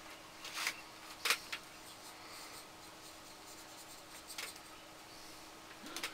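Paintbrush loaded with acrylic paint brushing across paper in a few short, scratchy strokes: a cluster about a second in, one near the middle and one at the end. A faint steady hum runs underneath.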